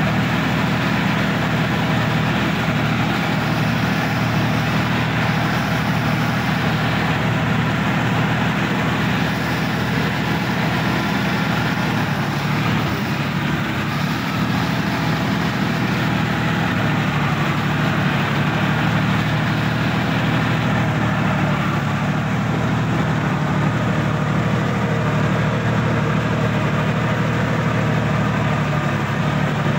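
Sonalika DI-50 RX tractor's diesel engine running steadily, heard from the driver's seat, its note shifting slightly about halfway through.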